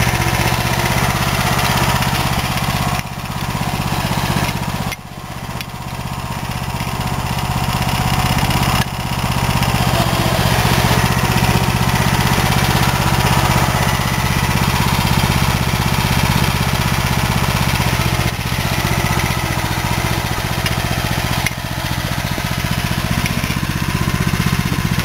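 Engine of a BCS 853 two-wheel walk-behind tractor running steadily, with a few brief dips in level.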